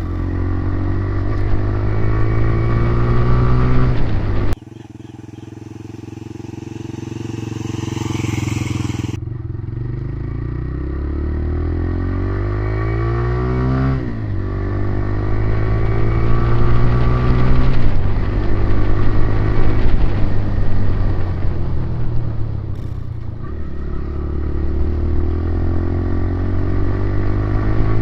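A new TVS Raider 125's single-cylinder engine running, its pitch rising and falling over and over as it is revved. The sound breaks off abruptly about four and a half seconds in, and a long rising sweep follows.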